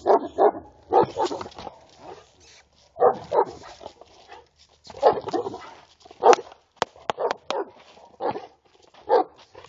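Serbian defense dog barking in repeated bouts at a provoker: defensive guard barking on the leash. A few short, sharp clicks come around two-thirds of the way in.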